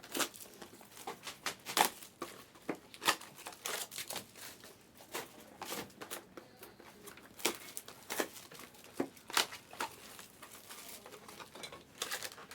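Plastic wrapping of sealed trading-card boxes and packs being crinkled and torn open by hand: a string of irregular sharp crackles and tears.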